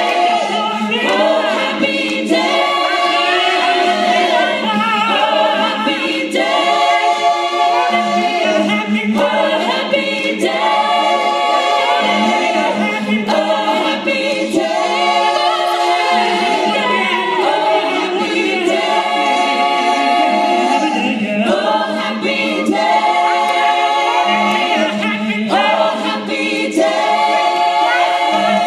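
An a cappella vocal group of men and women singing in harmony into handheld microphones, amplified through stage speakers. The voices hold chords in repeated phrases of a second or two over a steady low bass note.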